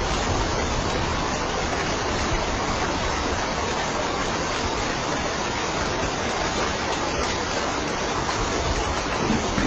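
Steady rain, a dense, even hiss with no single drops or pauses standing out.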